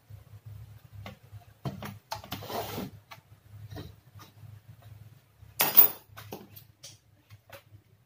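Handling noise at a workbench as a TV circuit board is moved and turned over: rustles, small clicks and a scrape, with one sharp clatter a bit past halfway, the loudest sound. A low hum comes and goes underneath.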